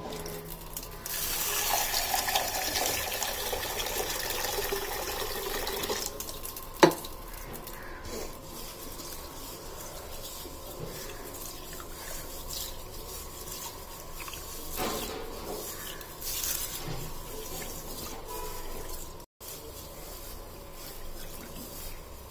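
Water running into a small pressure cooker pot of green gram for about five seconds, then one sharp knock, then a hand swishing and rubbing the beans in the water to wash them.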